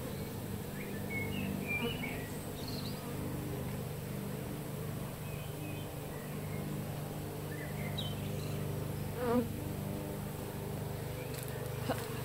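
A mass of honeybees buzzing in a steady low hum as their colony is disturbed and scooped out of its nest by hand. The hum swells briefly about nine seconds in.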